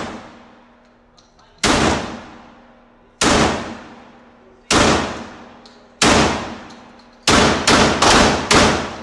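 Semi-automatic 12-gauge shotgun firing eight shots. The first four come about a second and a half apart, then four follow in quick succession near the end. Each shot trails off in a long echoing decay inside the indoor range.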